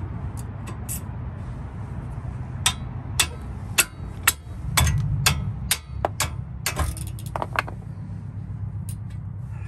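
Steel wrench clinking and knocking against the brake caliper bracket while breaking loose a tight 17 mm caliper bracket bolt: a string of sharp metallic clicks from about a third of the way in until near the end, over a steady low hum.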